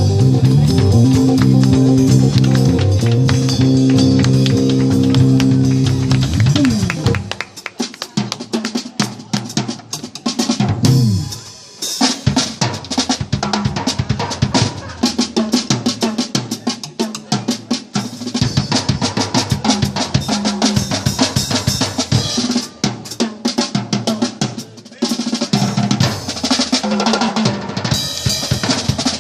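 Compact suitcase drum kits played fast and loud, with dense kick, snare and rimshot strokes. For the first several seconds a bass guitar holds low notes underneath; it ends in a downward slide, and then the drums carry on mostly alone.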